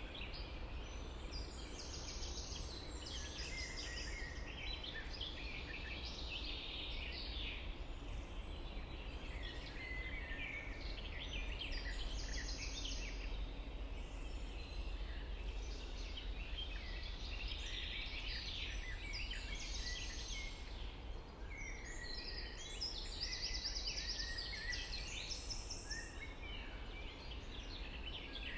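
Several songbirds singing at once, a dense chorus of overlapping trills and chirps that swells and thins, busiest near the start, about halfway through and near the end. A steady low rumble runs underneath.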